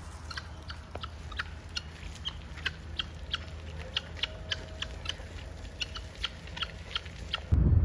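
Park fowl at a feeding spot: a rapid, irregular string of short high calls, a few each second, over a steady low rumble. Near the end it cuts off suddenly to a louder low rumble.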